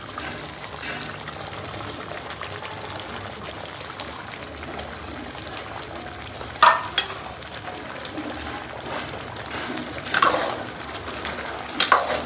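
Creamy mutton karahi gravy simmering steadily in a wok over a gas burner. In the second half a steel ladle stirs it, clanking sharply against the wok three times.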